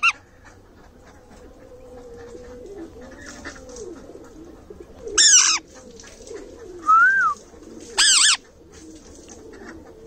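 Caged male rose-ringed parakeet calling: a loud short call about five seconds in, a softer rising-and-falling whistle near seven seconds, and another loud call about eight seconds in. Faint low cooing runs underneath.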